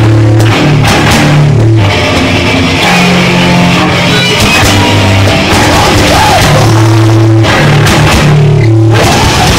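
Punk-metal band playing live and loud: electric guitar and drum kit pounding out a heavy riff, with brief stops in the riff near two seconds in and twice late on.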